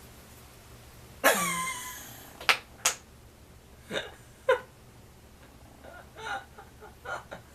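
A person's voice: a short, falling cry about a second in, then a few brief vocal sounds. A couple of sharp clicks come between them.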